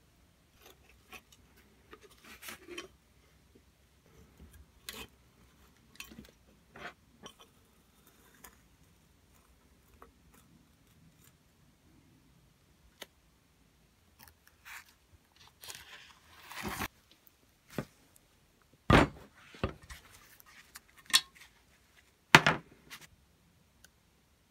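Scattered clicks, scrapes and knocks of a greasy old Tecalemit grease gun and its small metal parts being handled and taken apart, busier in the second half, with two sharper knocks in the last third.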